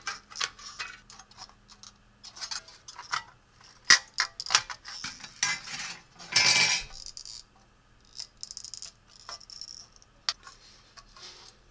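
Tin snips cutting thin corrugated sheet metal: a run of short, sharp metallic snips at irregular intervals, with one longer rasp of the sheet a little past halfway.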